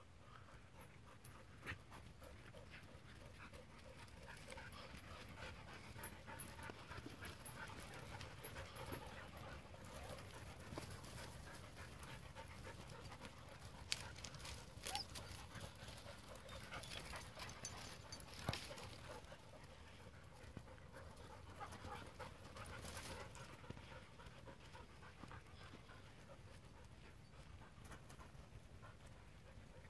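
German Shorthaired Pointers panting quietly, with a few sharp clicks about halfway through.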